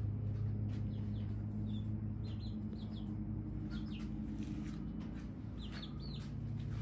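Baby chicks peeping in short, high chirps, a few clusters over several seconds, over a steady low hum.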